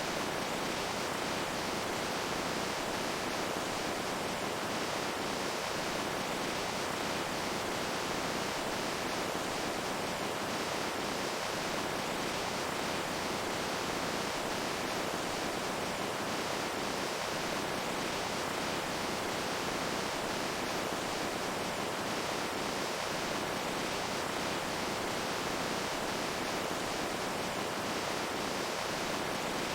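Running water rushing steadily, an even, unbroken sound with no separate splashes.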